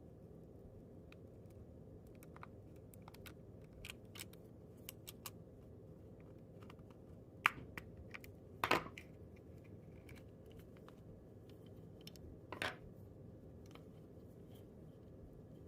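Small plastic clicks and taps of a key fob being handled and pried apart, with a few louder sharp snaps of its case, one about halfway through and another near three-quarters.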